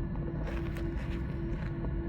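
Airliner cabin noise before takeoff: a steady low rumble with a hum that pulses about three times a second.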